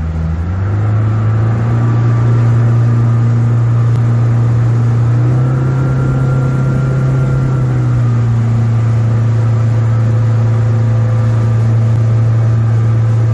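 Mercury F150 four-stroke outboard fitted with a water-jet lower unit, driving a six-metre boat at speed, heard from the helm. Its note climbs about half a second in as the throttle opens, then holds steady, rising a little and settling back midway.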